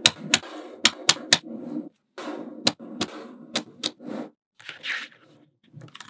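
Small magnetic balls snapping together, about nine sharp clicks at an uneven pace over a softer rattle of balls rolling against each other.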